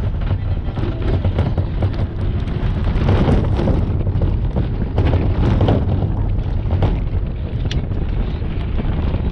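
Wind noise on the microphone over a steady low rumble, with many small knocks and rattles throughout.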